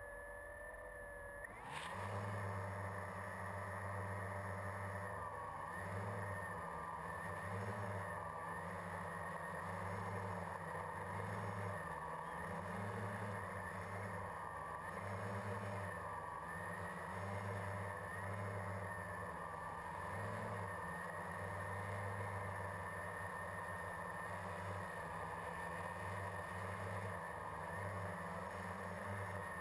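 Quadcopter's electric motors and propellers starting up about two seconds in and then running steadily, picked up by the GoPro on board; the pitch wavers up and down as it flies.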